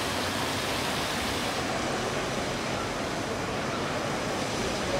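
Steady rushing hiss of a fountain's water splashing into its basin. About a second and a half in, the hiss turns duller, leaving a general outdoor city hum.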